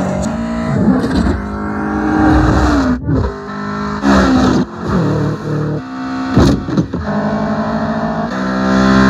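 Car engine sound effect revving hard, with the pitch climbing and dropping back several times as if shifting up through the gears.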